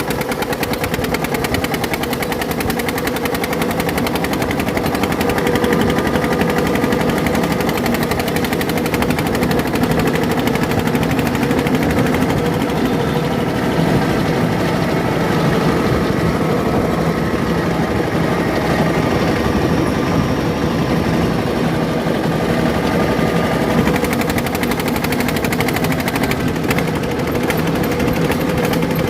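Engine running with a loud exhaust, a rapid, even chatter of firing pulses that holds steady throughout.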